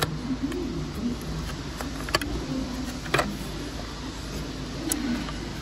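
Hard plastic clicking and knocking as the indicator lens is worked loose and slid out of a car wing mirror housing: four sharp clicks a second or so apart, over a steady low hum.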